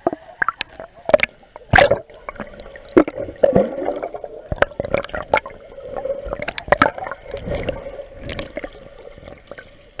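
Water sloshing and gurgling as heard by a camera held underwater, with irregular sharp clicks and knocks, the loudest a little under 2 seconds in and again at about 3 seconds, over a steady low drone.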